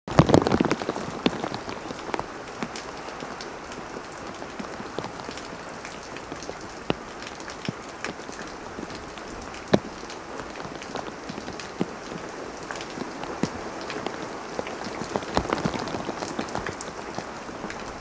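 Heavy rain, a downpour, falling steadily on the trees and garden, with scattered sharp ticks of single drops striking close by. It is louder for about the first second.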